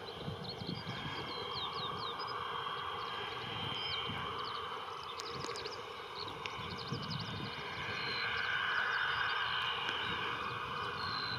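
Cessna Citation CJ3's twin Williams FJ44-3A turbofans running at taxi power, a steady jet whine and hiss that swells about eight seconds in. Small birds chirp over it.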